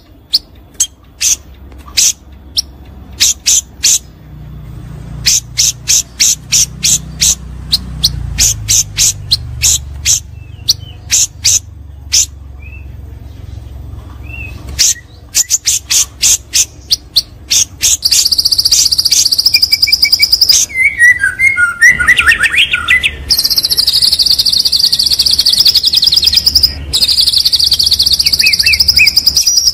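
Shama (murai batu) singing: a long run of sharp, separate high-pitched notes, then, past the middle, a fast continuous high trill with lower warbling phrases beneath it.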